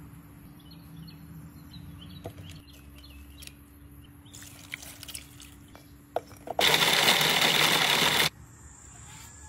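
Food processor motor running for under two seconds, blending dried chilies, herbs and spices into a sauce, then cutting off abruptly. Before it, a thin stream of liquid pours into the plastic bowl, with a few light clicks.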